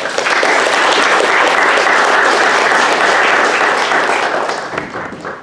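Audience applauding: the clapping starts suddenly, holds steady, then thins to a few scattered claps and dies away near the end.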